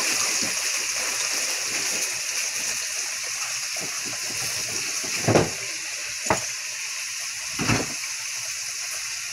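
Hot oil sizzling steadily as fish fillets fry in a skillet, with three sharp knocks about five, six and seven and a half seconds in.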